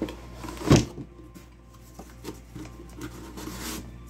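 Handling noise of a phone microphone: hoodie fabric rubbing and brushing against it, with one loud bump about three quarters of a second in and a few lighter knocks and rustles after.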